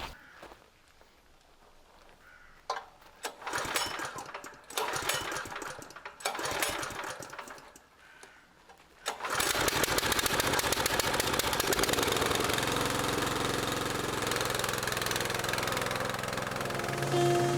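A small engine starts about nine seconds in and keeps running loud and steady, with a fast pulsing beat. Before it there are only a few scattered knocks and scrapes.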